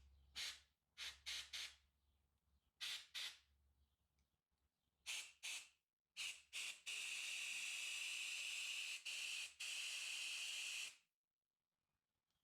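Compressed air from a blow gun hissing through a Briggs & Stratton lawn-mower carburetor to clear gum left by stale fuel from its passages. About ten short blasts come first, then a long blast of about four seconds with a brief break in it.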